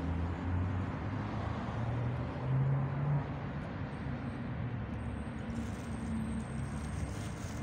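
Background traffic noise: a low motor hum that drifts in pitch, rising briefly about two to three seconds in, over a steady hiss.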